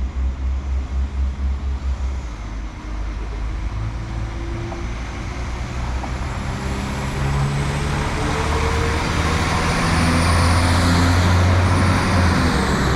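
Northern Class 195 diesel multiple unit pulling away: its underfloor diesel engines rev up and their pitch rises steadily as it accelerates. A high whine climbs with them, and the sound grows louder toward the end.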